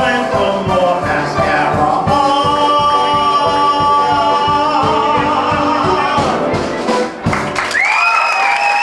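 Live show music: a singer over a band with a steady beat. The beat drops out about seven seconds in, leaving a long final sung note held over sustained chords.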